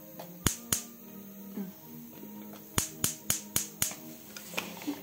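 Gas hob's push-button spark igniter clicking as the button is pressed: two clicks, a pause, then a quick run of five at about four a second. The burner does not catch.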